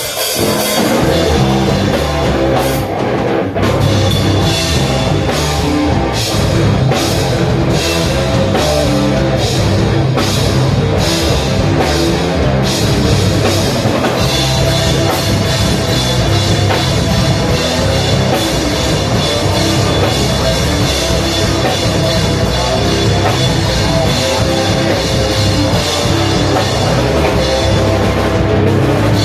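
Loud rock music with a drum kit, cymbal strikes landing about twice a second in the first half, then a denser, more continuous wash from about halfway through.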